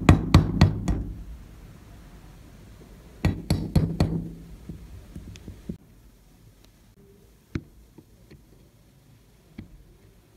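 A hammer tapping a nail used as a pin punch against a rusty steel pistol frame, knocking out a pin. There is a quick run of ringing metal strikes in the first second and another run about three and a half seconds in, then a few faint metal clicks.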